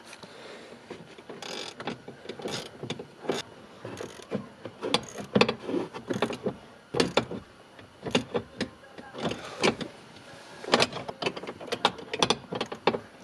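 Ratchet wrench with an extension tightening the top bolt of a steering column shaft: short, uneven runs of sharp metal clicks and clacks.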